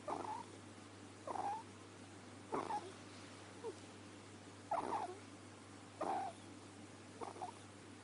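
Pet ferret snoring in its sleep: short snores that repeat evenly, about one every second and a quarter.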